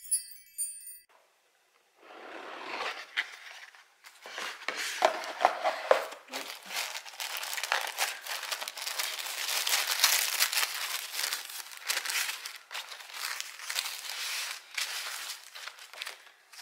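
A short chiming jingle ends about a second in. After a brief pause comes continuous crinkling and rustling of tissue paper and packaging as a box is unwrapped by hand.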